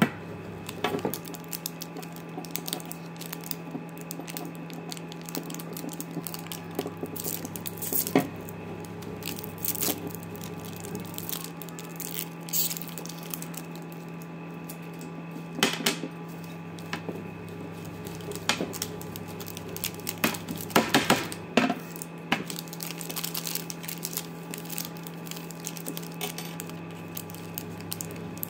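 Plastic and foil sweet wrappers crinkling and tearing as hard candies, toffees and a wafer bar are unwrapped by hand, with scattered sharp clicks and crackles, the busiest about 8, 16 and 21 seconds in. A steady low hum lies beneath.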